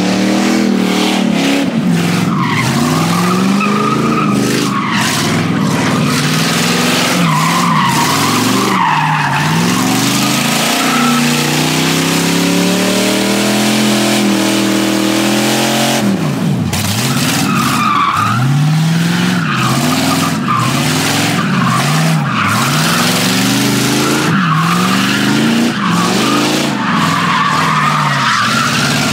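A car doing donuts, its engine revving up and down while the rear tyres squeal and skid on the asphalt. About halfway through, the engine holds one steady pitch for a few seconds, dips briefly, then goes back to rising and falling revs with more tyre squeal.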